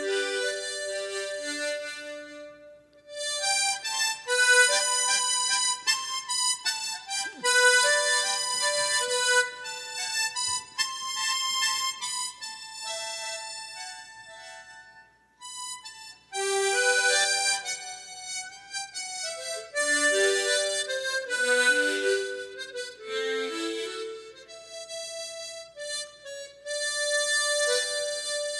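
Harmonica playing a slow melody in phrases, with brief breaks about three seconds in and around the middle.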